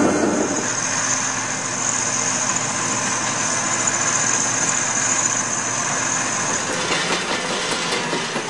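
Engine of an underground pipe-laying machine running steadily, with a high steady whine over it that fades out about seven seconds in.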